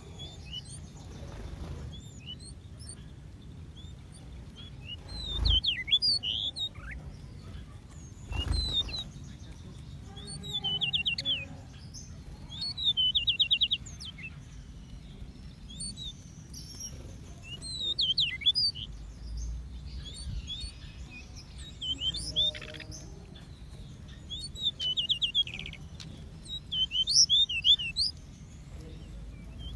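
Small aviary birds chirping and trilling in short bouts every few seconds, some calls as fast, even trills. There are a couple of brief low thumps, over a steady low background hum.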